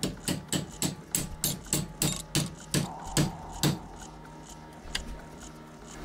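Hammer striking a pin punch to drive the pin out of a steel folding knife held in a vise: a quick run of about a dozen sharp metallic taps, roughly three a second. The taps stop after about three and a half seconds, with one faint tap a little later.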